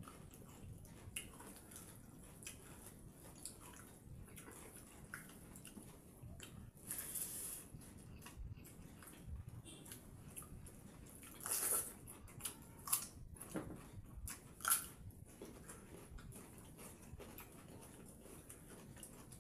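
Eating by hand: fingers mixing and scooping pakhala, rice soaked in water, in steel bowls, with chewing. Several short, louder wet sounds come in the middle part.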